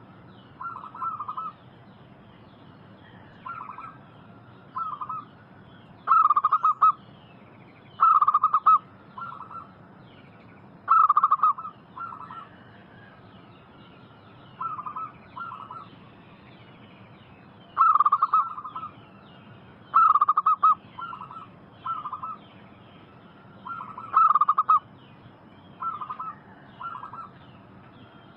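Zebra doves (perkutut) cooing: short clipped bursts of coos, repeated every one to two seconds, some loud and some fainter. Small birds chirp faintly behind them.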